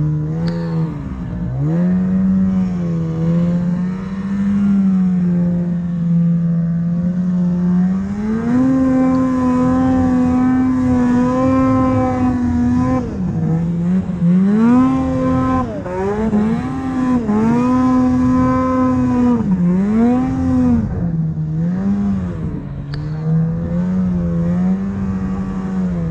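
Snowmobile engine running hard under load in deep snow. Its pitch holds steady at first, steps up about a third of the way in and stays high, then rises and falls several times in quick throttle blips through the middle before settling back to a steady pitch near the end.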